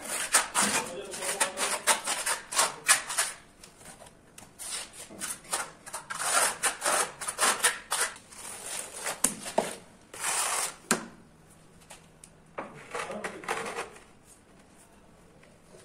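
Steel trowel scraping and spreading cement tile adhesive on a wall in repeated strokes, in several bursts that die down near the end.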